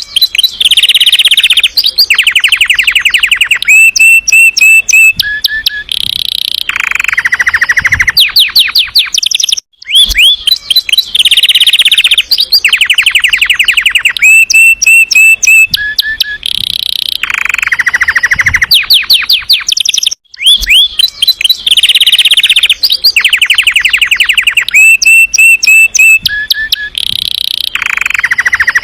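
Domestic canary singing: long runs of fast rolling trills and quick repeated notes. The same song phrase of about ten seconds comes round three times, with a short break between each.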